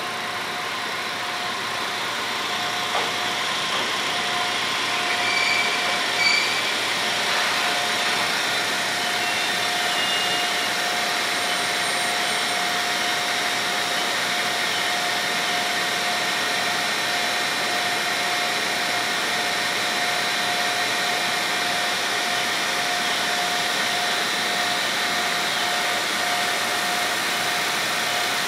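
JR East HB-E300 series hybrid diesel train arriving at the platform, its diesel generator engine and equipment running with a steady drone. A thin, steady whine sets in a few seconds in and holds throughout.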